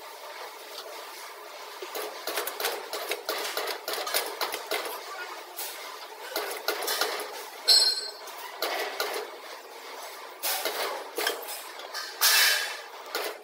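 Sheet-metal duct elbow clattering and clinking as it is turned through the rollers of a round duct elbow making machine: a stream of irregular metallic clicks, a short ringing clink about eight seconds in and a louder ringing clang near the end.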